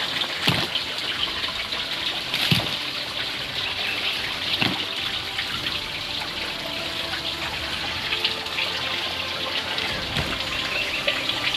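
Steady rushing of flowing water, with a few short knocks over the top.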